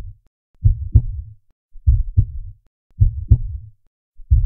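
A heartbeat: paired low thumps, lub-dub, repeating steadily about once every 1.2 seconds, four beats in all.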